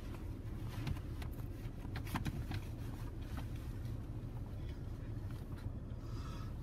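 Oasis XP touchless in-bay car wash heard from inside the car: water spraying and drops tapping on the body and glass over a steady low rumble.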